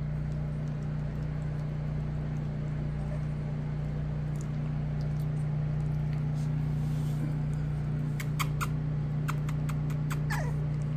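Four-week-old cockapoo puppies making small chewing and shuffling sounds over a steady low hum. A few sharp clicks come about eight seconds in, and near the end a puppy gives a short whimper that falls in pitch.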